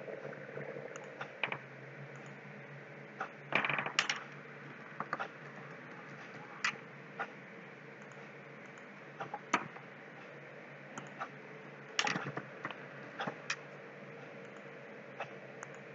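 Computer keyboard keystrokes and mouse clicks, irregular and scattered, with small clusters of taps, over a faint steady hum.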